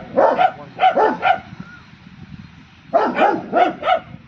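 A dog barking in quick runs: about six sharp barks in the first second and a half, a pause, then another run of about five barks near the end.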